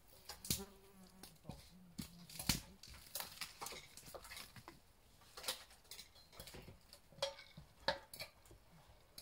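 Irregular knocks and metallic clinks from handling tools, screws and wood while building a wooden hunting stand, with a short low hum about half a second in.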